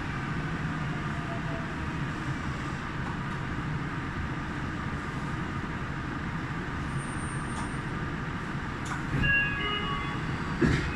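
Yui Rail straddle-beam monorail train running on its rubber tyres, heard from inside the car as a steady rumble and rush. In the last couple of seconds a few held high tones and some louder knocks come in.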